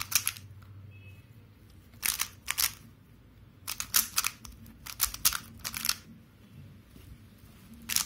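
Plastic clacking of a Moyu Weilong GTS 2M speed cube's layers being turned by hand, in quick bursts of several turns with short pauses between.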